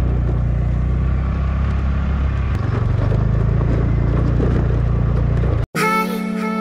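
TVS Ntorq 125 scooter's single-cylinder engine running at low speed over a rough stony track, its note shifting about two and a half seconds in. The sound cuts off abruptly near the end and background music takes over.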